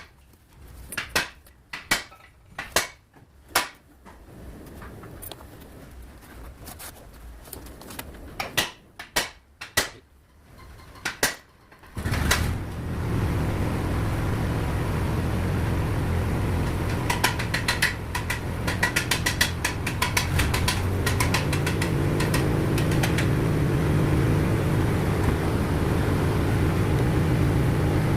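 Sharp knocks and clinks of hand tools and metal parts, a few seconds apart. About twelve seconds in, a motor starts suddenly and then runs steadily with a low hum. Partway through, a quick run of fast ticks sounds over it.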